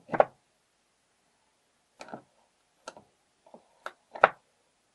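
Sharp clicks and taps from metal parts of an old mortise door lock being handled and fitted inside its case, about six separate clicks with the loudest near the end.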